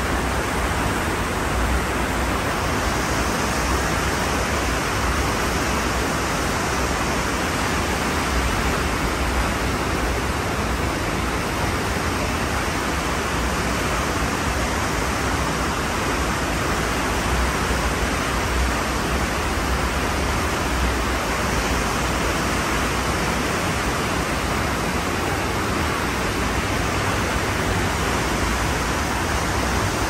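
Ocean surf as a steady, even rush of noise, with no single breaking wave standing out.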